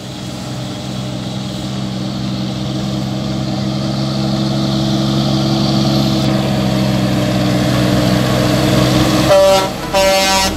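Heavy tractor-trailer truck's diesel engine running steadily at a constant pitch, growing louder as the truck approaches. Near the end come two short blasts of the truck's horn.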